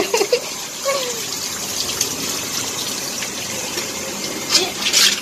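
Water gushing from a garden hose and splashing over a wet dog's coat and the concrete floor, with a few sharper splashes near the end.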